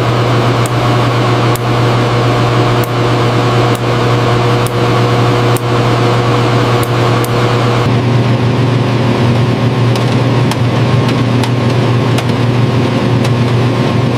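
Machinery humming steadily, with light clicks about once a second; the hum changes slightly about eight seconds in.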